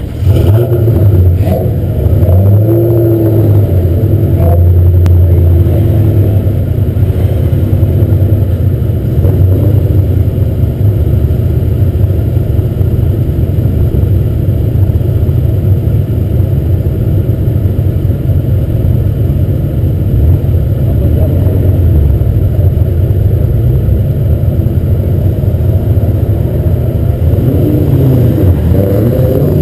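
Acura TL Type-S's V6 engine idling, a loud steady low rumble picked up by a camera mounted on the car's body.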